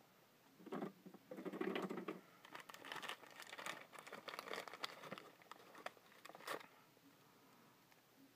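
Packing paper crinkling and rustling as small wrapped items are unwrapped by hand, in crackly bursts for about six seconds, loudest about a second and a half in.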